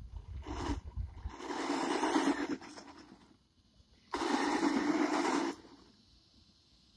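Hart 20-volt battery RC truck driving on a dirt road in three throttle bursts: its electric motor runs and its tyres scrub the loose dirt, one short burst then two of about a second and a half, each cutting off sharply.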